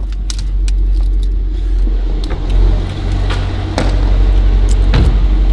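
A car's steady low rumble, with several sharp clicks and a light metallic jangle as the camera is carried about.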